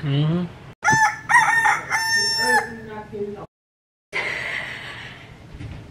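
A rooster crowing once, a multi-part cock-a-doodle-doo starting about a second in with its last note held long, dropped in as a morning sound effect. It cuts off abruptly into a moment of dead silence, followed by faint room hiss.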